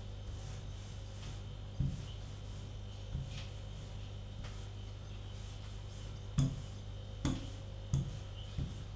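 Hands pressing and rubbing rolled-out pizza dough on a floured tabletop to round it off, with a few dull thumps on the table, the loudest about six and a half seconds in, over a steady low hum.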